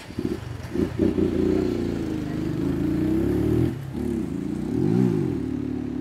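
A motor vehicle's engine running close by, starting suddenly and revving up and down, with a brief drop a little before four seconds in and a rise and fall of pitch about five seconds in.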